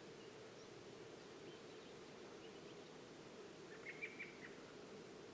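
Near silence with a faint steady hiss. About four seconds in, a small bird gives a brief cluster of short, high chirps.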